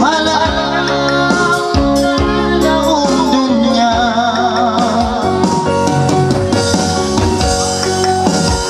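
Electronic keyboard playing a song over its built-in drum rhythm, with a man singing into a microphone through the amplified sound, his voice wavering with vibrato about three to four seconds in.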